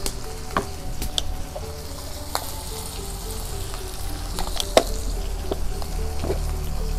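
Beef skin and vegetables sizzling in a steel wok just after water has been added, with a few sharp clicks, the loudest about two thirds of the way through. Background music plays softly underneath.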